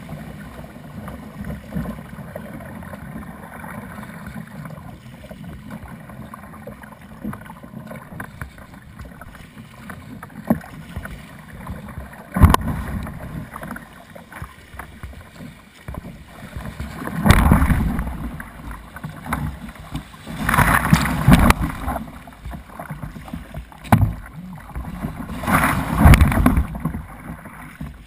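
Ocean water sloshing and splashing against a kayak's bow close to the camera as it moves through surf and swell, with a sharp splash about twelve seconds in and several louder surges of splashing in the second half.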